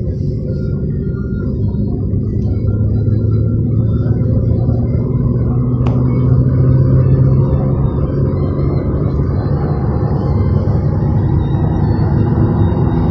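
Car engine and tyre noise heard inside the cabin while driving at highway speed: a steady low drone with an engine hum. It gets slightly louder about six seconds in, with a single sharp click at about that point.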